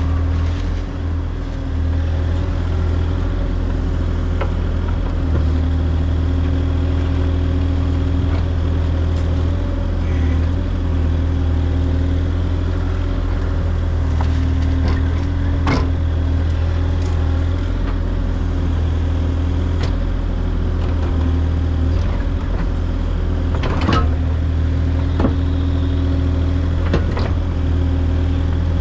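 Mini excavator's diesel engine running steadily under hydraulic load while the bucket digs soil, with a few sharp clanks from the bucket, around the middle and near the end.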